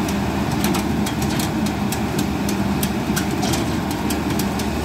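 Horizontal directional drilling rig's diesel engine running steadily as the rig rotates and pushes drill pipe into the bore, with many sharp metallic ticks over the engine noise.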